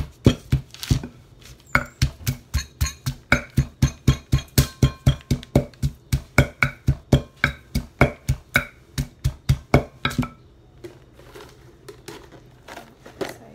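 Wooden pestle pounding red chilies and garlic in a deep wooden som tam mortar: a steady run of wooden knocks about four a second, stopping about ten seconds in.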